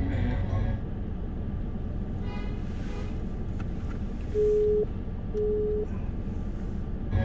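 Low, steady rumble of a car's cabin and road noise while driving slowly on a wet street. About four and a half seconds in come two short electronic beeps of the same pitch, a second apart.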